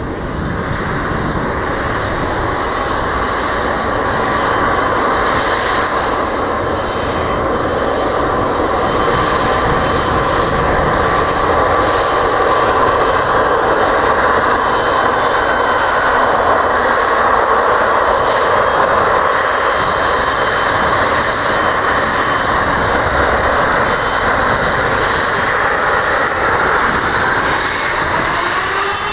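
Boeing 777-300ER's GE90 turbofan engines running while the jet taxis: a loud, steady jet rumble with a whine over it.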